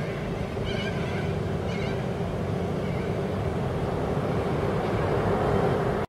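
Steady road-traffic rumble with a constant low hum, growing a little louder near the end. Two short corella calls come about one and two seconds in.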